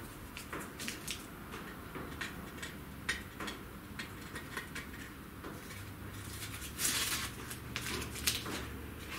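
Faint scattered clicks, taps and light scrapes of a carved cedar workpiece being pried off a CNC router's spoil board and handled, along with its blue work-holding strips.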